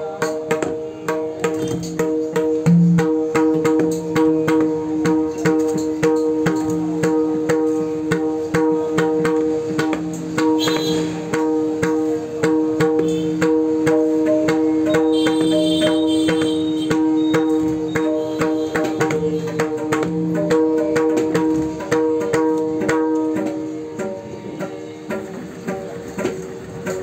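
Freshly repaired pakhawaj, tuned to D#, played with quick fingertip strokes on its right-hand head, each stroke ringing on in a steady pitched tone. The ringing dies down and the strokes lighten a few seconds before the end.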